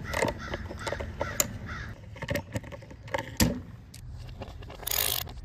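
Ratchet and 8 mm socket clicking and knocking on the air cleaner housing bolts, with a sharp metal knock about three and a half seconds in. Crows caw several times in the background, harshest near the end.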